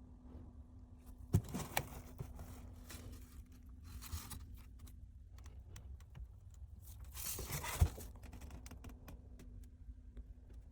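Hard parts being handled: scattered clicks and knocks with brief scraping or rustling, over a steady low hum. Two sharp knocks come about a second and a half in, and the loudest knock comes near the end of a scraping stretch about eight seconds in.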